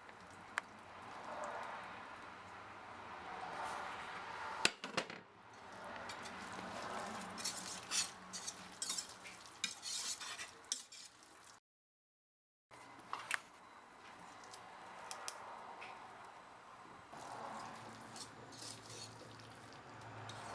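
Macaroni, shredded chicken and cheese sauce being stirred with a utensil in a saucepan: soft, wet stirring strokes in slow waves, with occasional light clinks of the utensil against the pot.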